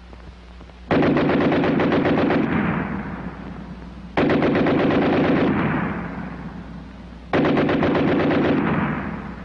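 American water-cooled Browning machine gun firing three bursts a few seconds apart, each about a second and a half of separate, evenly spaced shots that trail off in echo. This is the slow, steady bark of American machine guns.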